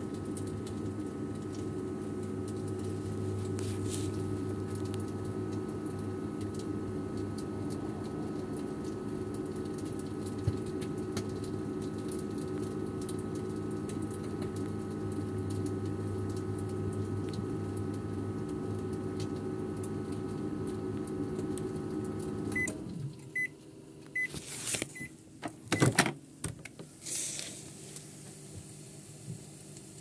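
Microwave oven running with a steady hum while heating food, cutting off about three quarters of the way through. A run of short beeps follows, signalling the end of the heating cycle, then several clicks and knocks as the door is opened.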